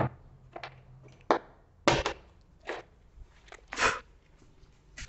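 A textbook and loose papers being handled: a series of short rustles and crackles, about eight in five seconds.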